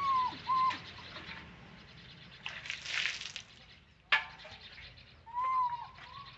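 Infant long-tailed macaque giving short, high, arching coo calls: two at the start and two more near the end. In between come a brief rustle and, a second later, a single sharp click.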